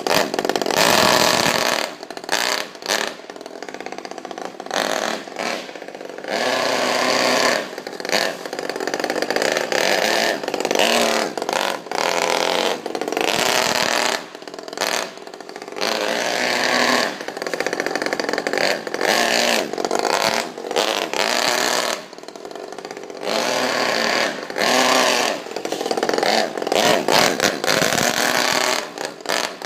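Saito FA-50 single-cylinder four-stroke glow engine in an RC car, revving up in loud stretches and dropping back between them over and over.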